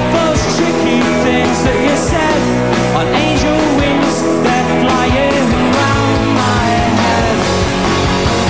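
Britpop band playing live, with a singing voice over guitars, bass and a steady drum beat.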